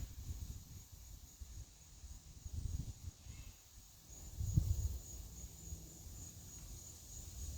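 Wind buffeting the microphone in irregular low gusts, strongest about four and a half seconds in, over a faint steady high-pitched hiss.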